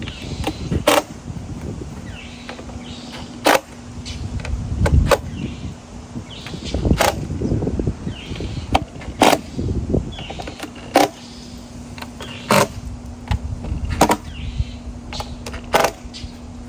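Cordless impact driver running in stretches of several seconds, driving the screws that mount a subwoofer into a ported sub box, with sharp clicks and knocks in between.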